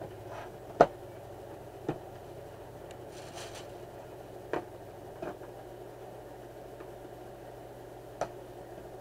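A cardboard graphics-card box being handled and set down on a plastic tray: a few sharp knocks and taps, the loudest about a second in, with a short rustle partway through, and a scissors snip at the box's tape seal near the end. A steady low hum runs underneath.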